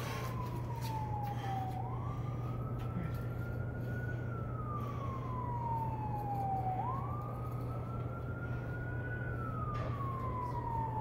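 Emergency-vehicle siren wailing: the pitch rises quickly, holds, then falls slowly, over and over about every five seconds, above a steady low hum.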